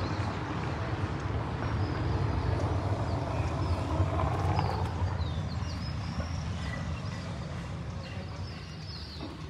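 A steady low rumble that swells for a few seconds in the middle and then fades, with short high bird-like chirps over it.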